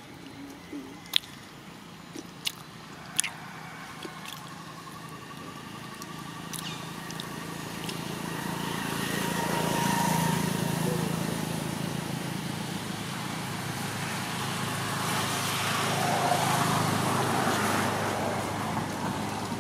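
A few sharp clicks in the first three seconds or so, then the noise of a passing motor vehicle swells and fades, loudest about halfway through and again near the end.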